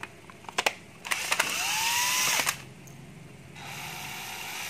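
Cordless drill/driver being trigger-tested: a couple of sharp clicks, then the motor spins up with a rising whine, runs for about a second and a half and stops. About a second later it starts again, running more quietly.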